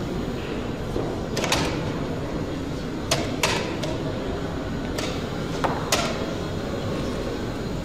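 Sharp clacks of wooden chess pieces being set down on the board and the chess clock being pressed, a few times and mostly in quick pairs, over a steady room hum.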